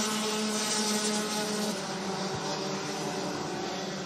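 Rotax Max DD2 kart engines, 125 cc two-strokes, running at racing speed as several karts go past, a steady engine note.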